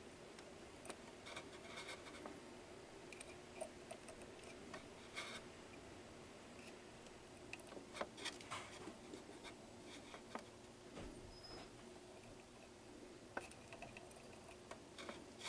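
Faint scattered clicks and light scratching of a soldering iron tip working along the pins of a chip on a circuit board, over a low steady hum.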